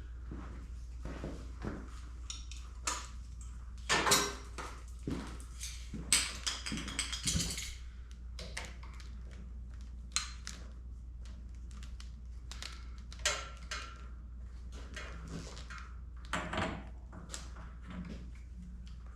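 Motorcycle handlebars being set into bar clamps: scattered metal clunks, taps and scrapes, with the loudest knocks about four and six seconds in.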